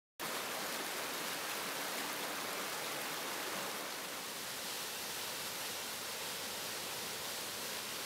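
Waterfall and mountain stream cascading over rocks: a steady, even rush of falling water that cuts in abruptly at the very start.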